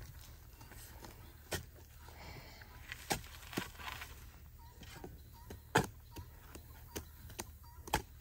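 Irregular light knocks and clicks, about seven of them, with a brief rustle in the middle, over a faint steady low hum.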